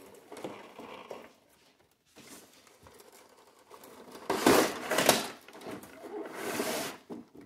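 Plastic packaging tray scraping and rubbing against a cardboard box as it is slid out. Soft rustling at first, then a louder, longer sliding scrape a little past halfway.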